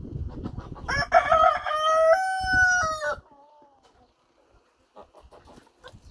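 Rooster crowing once: a full cock-a-doodle-doo starting about a second in, held for about two seconds in several steps, then trailing off in a short falling tail.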